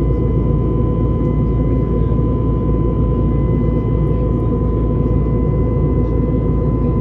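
Steady cabin noise of an Airbus A321neo in flight, its CFM LEAP-1A engines and the airflow making an even, low rumble with a faint steady whine above it.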